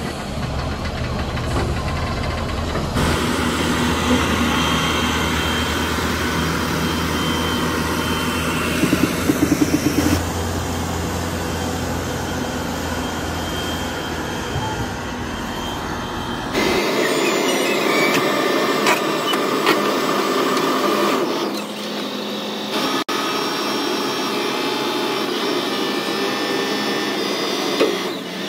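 Diesel engines of heavy construction machinery running, heard in several takes that change abruptly from one to the next. A quick run of loud knocks comes about nine seconds in.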